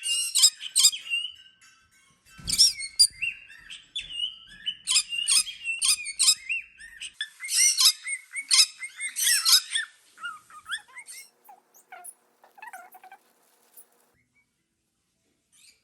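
Parrot calling: loud, harsh squawks in quick clusters for the first ten seconds or so, then softer chirps and squeaks that trail off into quiet near the end.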